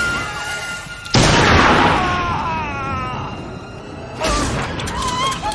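Film shootout gunfire: a loud boom about a second in and another about four seconds in, each with a reverberant tail, over music.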